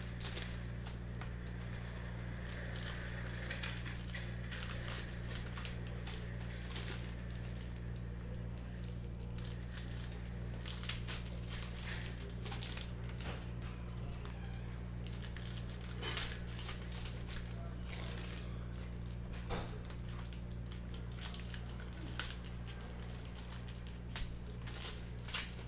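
Wrapped trading-card packs handled and stacked on a desk, their wrappers crinkling with irregular light clicks, over a steady low hum.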